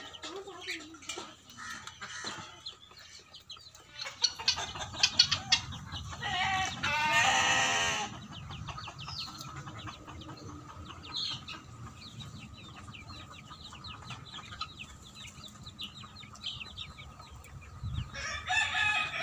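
Flock of chickens clucking and calling, with one loud rooster crow lasting about two seconds, around six seconds in. Many quick high chirps follow, and another loud call begins near the end.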